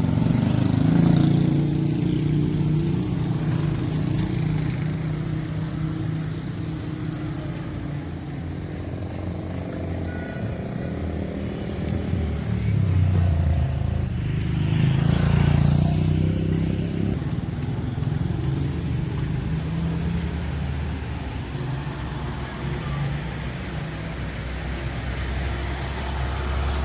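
Motor vehicle engine running steadily with a low hum, and louder swells about a second in and again between about 12 and 16 seconds as traffic passes.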